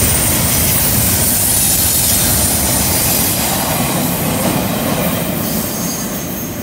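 Double-stack intermodal container cars rolling past on a curve, a steady rumble with thin high wheel squeal from flanges against the curved rail. The sound eases off slightly in the last couple of seconds as the end of the train draws away.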